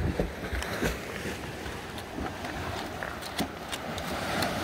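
Steady wash of sea surf against the rocks, with wind noise on the microphone and a few brief clicks and knocks.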